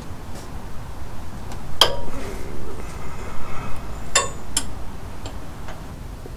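Hand tools and metal parts clinking under the truck: a few sharp metallic clinks with a short ring, one about two seconds in and two close together a little after four seconds, with lighter ticks between.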